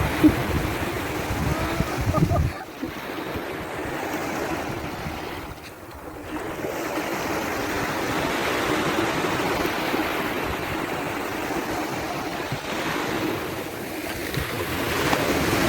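Surf washing onto a beach: a steady wash that swells and ebbs, dipping briefly about six seconds in. Wind buffets the microphone for the first couple of seconds.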